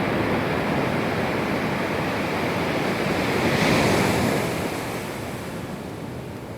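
Ocean surf: waves breaking and washing up the sand, swelling to a hissing peak a little past halfway and then fading.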